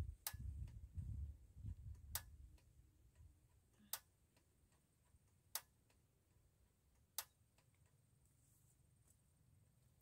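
A sharp tick repeating about every second and a half, over a faint low rumble in the first few seconds.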